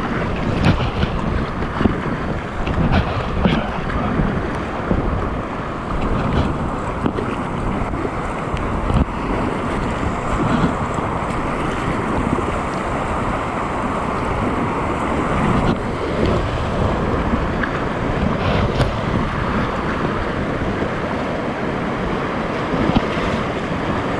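Whitewater rapids rushing loudly and steadily around a kayak, with frequent splashes of waves breaking over the bow and wind buffeting the microphone.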